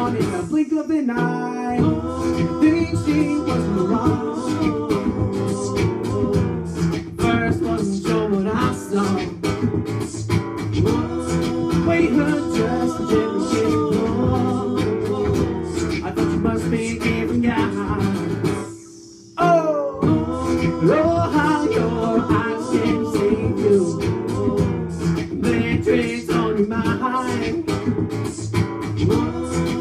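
Acoustic guitar strummed under a man's singing, with parts layered through a loop pedal. The music cuts out for under a second a little before two-thirds of the way through, then comes back in.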